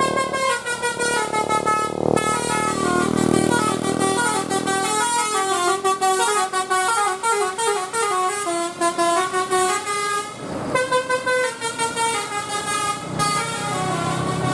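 Bus 'telolet' horn, a multi-trumpet air horn, playing a quick melody of short stepped notes, with a short break about ten seconds in.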